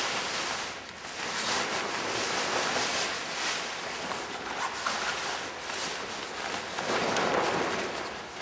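Nylon wing bag of a flexwing microlight wing rustling as it is pulled off the wing and gathered up by hand.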